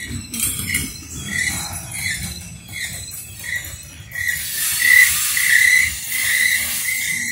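Freight train cars rumbling past a railroad grade crossing while the crossing bell rings. The bell strikes about every two-thirds of a second and runs almost together from about four seconds in.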